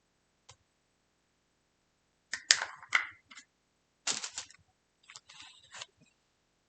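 Sharp plastic clicks and snaps as a setting-powder container is opened by hand: a single faint click, then loud clusters of clicks about two and a half and four seconds in, and a rougher crackling spell near the end.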